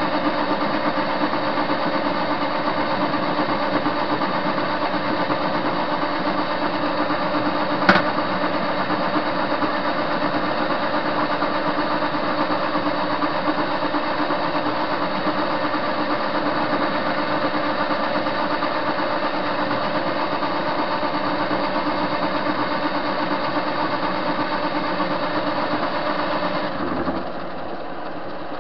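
Soviet TV-16 lathe running steadily as it turns a metal bar, a constant mechanical whine of motor and gearing. A single sharp click comes about eight seconds in, and near the end the sound drops slightly and changes.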